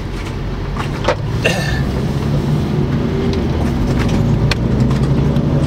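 Volkswagen car engine and road noise heard from inside the cabin while driving: a steady low hum that grows louder over the first couple of seconds, with a few light clicks.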